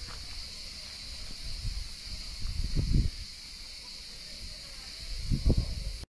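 Outdoor wind buffeting the microphone in two low gusts, about two and a half seconds in and again near the end, over a steady high hiss.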